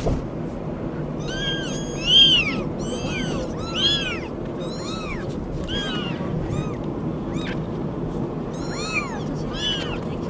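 Several young kittens mewing again and again, short thin high mews that each rise and fall, some overlapping, over a steady low background rumble.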